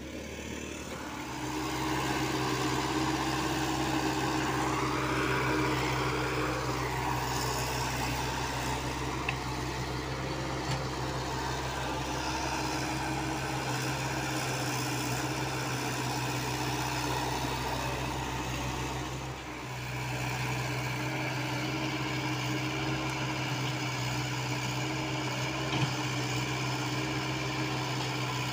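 Diesel engine of a Komatsu PC75UU mini excavator running steadily as the machine digs. The engine picks up about a second in and drops briefly about two-thirds of the way through, with a few light knocks.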